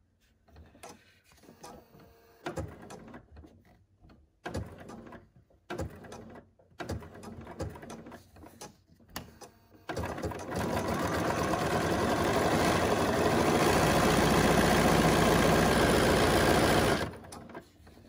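BERNINA sewing machine sewing a zigzag satin stitch over wire along the edge of a fabric leaf. It goes in short stop-start runs while the fabric is turned, then about ten seconds in runs steadily at speed, getting louder, and stops suddenly near the end.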